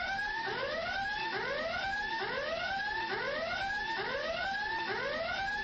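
A whooping alarm siren, each whoop sweeping up in pitch and then holding, repeating a little more than once a second at an even level.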